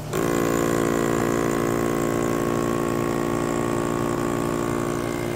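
Electric vacuum pump of a crane-hung vacuum lifter switching on and running at a steady pitch, drawing vacuum under its suction pad on a facade panel. A low steady engine hum from an idling machine runs underneath.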